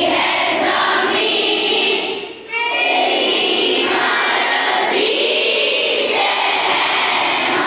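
A group of schoolgirls singing a prayer together in unison, with one short break for breath about two and a half seconds in.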